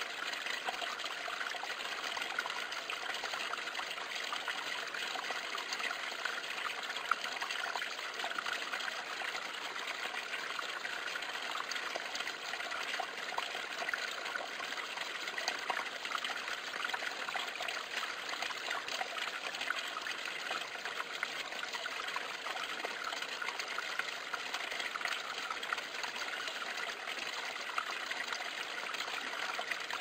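A thin stream of water trickling and splashing steadily as it falls a short drop into a shallow pool.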